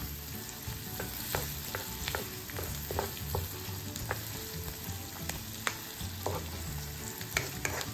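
Chopped onions and garlic sizzling in hot oil in a pan, stirred with a utensil that makes irregular clicks and scrapes against the pan.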